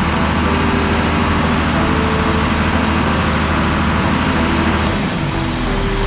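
John Deere tractor's diesel engine running steadily, mixed with background music.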